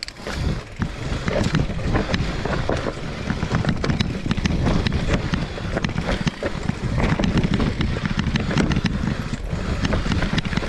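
Electric mountain bike riding down a dry, rooty dirt singletrack: a continuous rumble of tyres on dirt, with frequent sharp knocks and rattles as the bike goes over roots and bumps.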